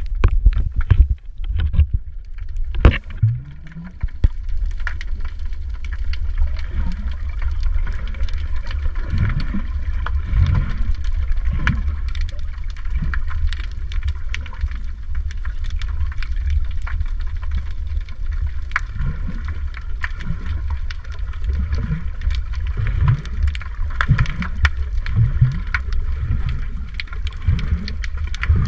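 Water noise heard underwater through a waterproof camera held below the surface: a steady, muffled low rumble of moving water, with frequent small clicks and short bubbling gurgles every second or two.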